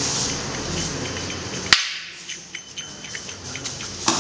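Stick-fighting sparring with rattan sticks: a steady rustling noise that cuts off with one sharp crack of a strike a little under two seconds in, then lighter clicks and taps, and another knock near the end.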